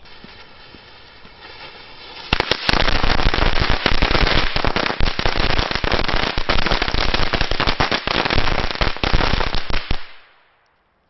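A 300-shot firecracker string (Pyro-Art Knallkette 300) going off. A quieter hiss runs for about two seconds, then the string fires in a rapid, unbroken run of sharp bangs for about eight seconds, which cuts off abruptly.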